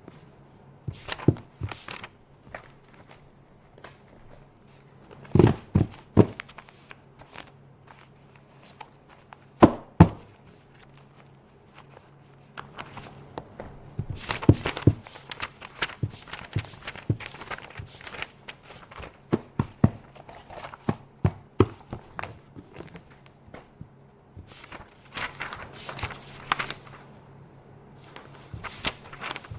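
Office paper being handled: sheets rustling and being shuffled and set down, with sharp clicks and knocks coming in clusters. The loudest knocks come in two quick groups, about a fifth and a third of the way in.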